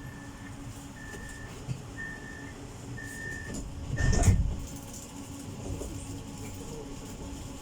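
Tram door-closing warning: five short high beeps about a second apart, then the doors of the PESA tram shut with a loud thump about four seconds in, over the steady hum of the tram's interior.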